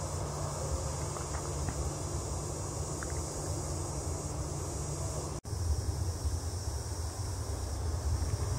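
Distant Boeing 737 jet engines giving a steady low rumble mixed with wind on the microphone, under a steady high buzz of insects. The sound drops out for an instant about five seconds in, and the low rumble comes back louder.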